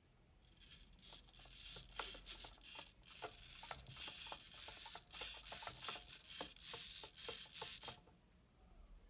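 Small RC helicopter servos, including a newly fitted metal-gear servo, whirring and clicking in quick repeated bursts as the transmitter sticks drive the swashplate. The sound stops about 8 seconds in.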